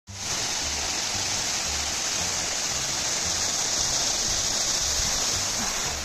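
Waterfall rushing: a steady, even roar of falling water that fades in quickly at the start.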